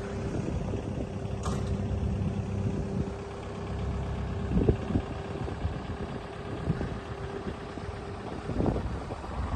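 Kubota U55-4 mini excavator's diesel engine running steadily at idle, with a couple of short knocks, one about halfway through and one near the end.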